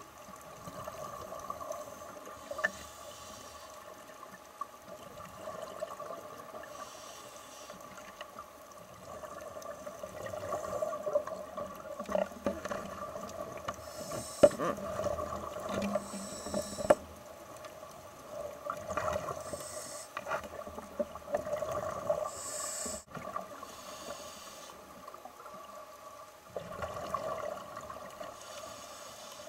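Underwater ambience picked up by a submerged camera: a steady drone throughout, with hissy water noise swelling every few seconds and scattered sharp clicks.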